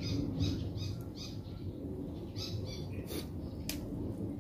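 A bird calling in a run of short high chirps, in two small groups, over a steady low hum; two sharp clicks near the end.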